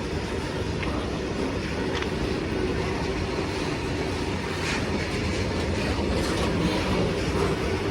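Long goods train rolling past: a steady rumble of the wagons, with a few faint clicks scattered through it.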